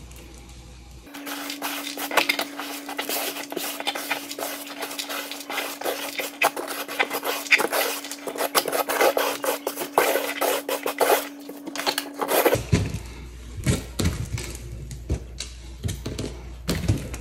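Dry chalk powder and reformed chalk pieces crunching and crumbling under the hands. About a second in, a dense crisp crackle starts; it thins to single, separate crunches about twelve seconds in.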